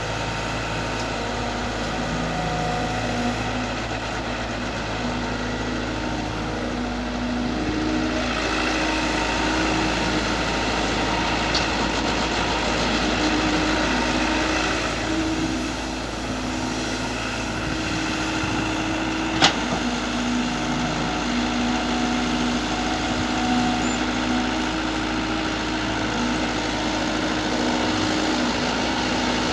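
IHI IS120GX long-arm excavator's diesel engine running steadily, its hum shifting a little in pitch as it works, with one sharp click about two-thirds of the way through.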